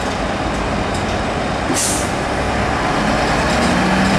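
Heavy trucks' diesel engines running, with a short, sharp hiss of compressed air from a truck's air brakes about two seconds in. An engine note comes up more strongly near the end as a truck pulls away.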